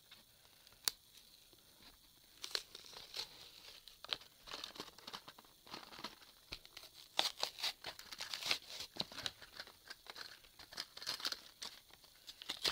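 Toy packaging being torn open and crinkled: a quick click, then from about two and a half seconds in, a busy run of crackling and ripping that grows denser later on.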